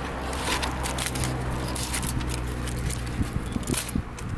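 Aluminium foil crinkling and crackling in irregular ticks as a foil packet of cooked fish is handled and opened, over a low steady hum.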